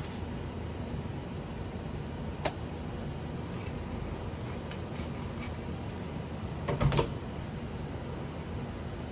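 Steady low background hum with a single sharp click about two and a half seconds in and a quick cluster of knocks a little before the end.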